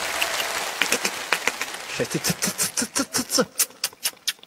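Mouth noises made close into a studio microphone: a rush of breathy noise at first, then a quick run of clicks and short smacking sounds that thin out near the end.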